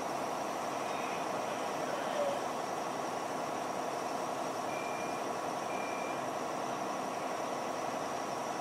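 A heavy truck's engine runs steadily, with a reversing beeper sounding twice about a second apart midway through.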